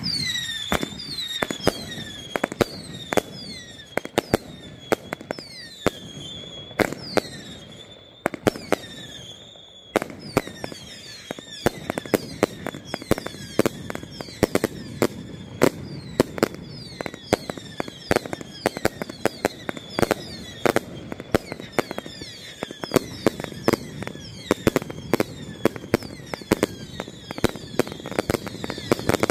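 Zombie Tsunami 49-shot consumer firework cake firing: a rapid string of sharp shots and crackling breaks, many carrying short whistles that fall in pitch. It starts suddenly, eases in a short lull about eight seconds in, then keeps firing densely.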